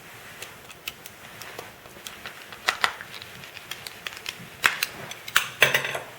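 Irregular clicks and taps of a plastic car door handle and its parts being handled and fitted together, with a few louder snaps in the second half.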